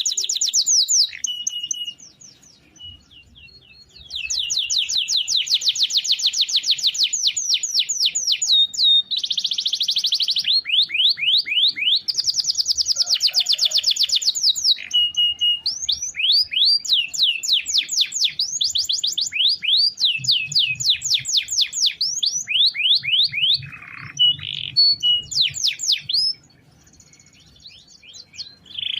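Domestic canary singing long rolling trills: fast runs of repeated high notes, broken by a few short steady whistles. The song pauses for about two seconds near the start and again near the end.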